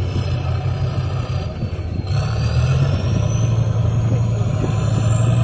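Heavy off-road trial truck's diesel engine running with a strong, steady low drone that shifts briefly about two seconds in. From then on a high whistle slowly rises in pitch.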